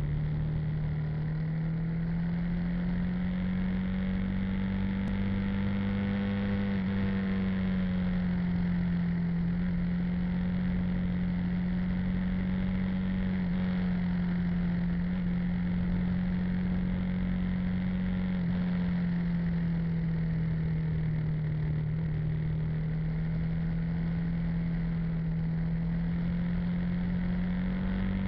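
Motorbike engine running steadily under way, its pitch drifting slowly up and down with the throttle through the bends.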